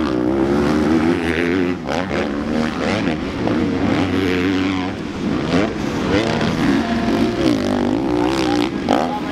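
Several motocross bikes revving and accelerating over a muddy track, their engine notes repeatedly rising and falling and overlapping as the riders work the throttle.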